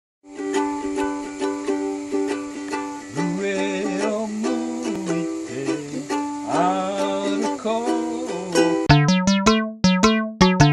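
A ukulele strummed in steady chords, with a wavering, gliding pitch rising and falling over the music in the middle. Near the end comes a quick run of short, sharp pitched notes, several a second.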